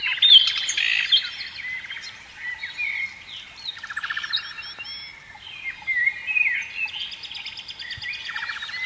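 A chorus of songbirds chirping, whistling and trilling, several calls overlapping at once.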